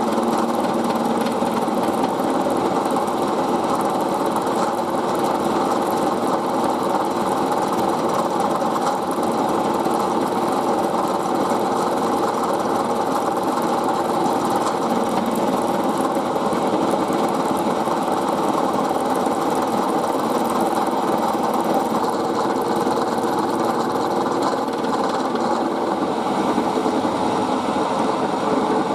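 Milling machine running with its end mill cutting a brass part: a steady mechanical whir with several held tones that stays even throughout.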